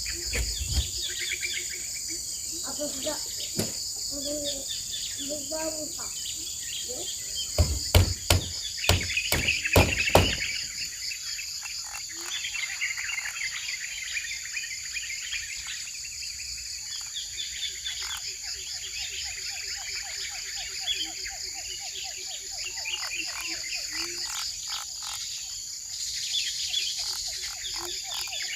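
Steady high-pitched insect buzzing with birds chirping. A quick series of loud, sharp knocks comes about eight to ten seconds in, and a lower, rapidly pulsing call runs through the second half.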